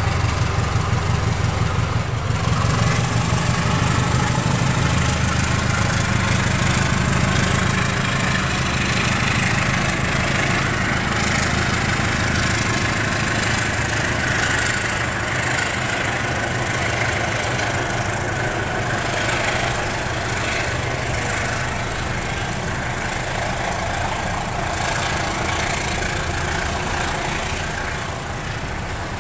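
A CC 203 diesel-electric locomotive's engine running as it passes, its low hum fading over the first several seconds, followed by the steady rolling noise of passenger coaches' wheels on the rails with occasional clacks.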